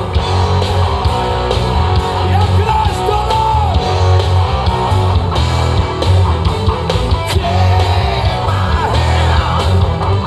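Live rock music played loud through a PA: electric guitars over a heavy bass that pulses about once a second, with voices singing and shouting.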